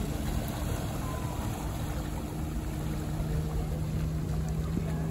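Motorboat under way: a steady engine hum under the rush of water and wind.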